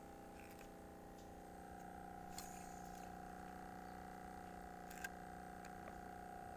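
A faint, steady hum held at a fixed pitch, with a couple of faint clicks, one about two seconds in and one about five seconds in.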